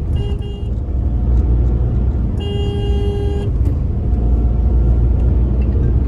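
Maruti Suzuki Alto 800's three-cylinder engine droning under way, heard inside the closed cabin: the engine noise the owner finds excessive since the car's first service. A car horn honks for about a second midway, after two short toots near the start.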